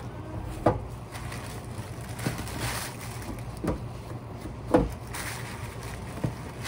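Clear plastic bags rustling and crinkling as they are handled, with a few sharp knocks spaced a second or so apart, over a steady low hum.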